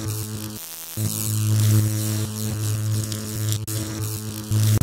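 Logo sting sound effect: a loud, steady electric mains hum and buzz with crackling static. It drops out briefly about half a second in, with a sharp crackle later on.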